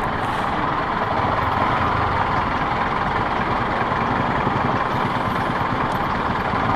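Steady rushing noise of a motorcycle on the move: the engine running under wind over the microphone, even in loudness throughout.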